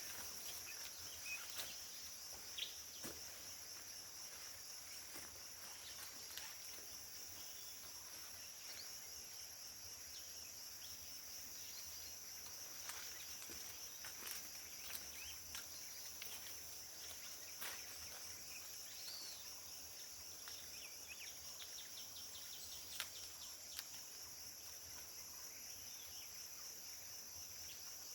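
Steady, high-pitched buzzing of a forest insect chorus, with scattered faint clicks and rustles.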